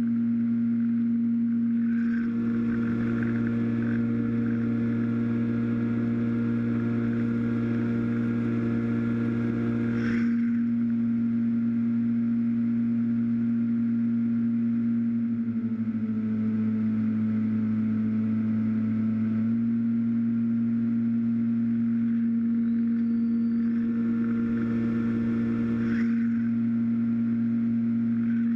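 Skyhunter FPV plane's brushless electric motor and pusher propeller running with a steady drone in cruising flight, heard from the onboard camera. The pitch drops a little for about four seconds past the middle, and a higher whine rises and falls in two stretches.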